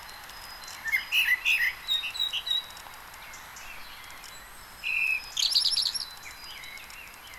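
Small songbirds chirping: a scatter of short, high chirps about a second in, then a quick trill of repeated notes about five seconds in, over a steady hiss.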